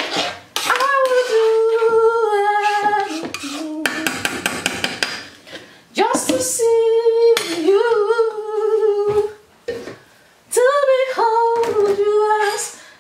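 A woman humming a slow tune in long held notes, phrase after phrase with short pauses. About four seconds in, a metal spoon taps rapidly against a pan.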